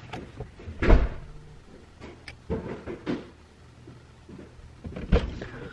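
A few dull thumps with rustling between them inside a parked car's cabin, the loudest about a second in.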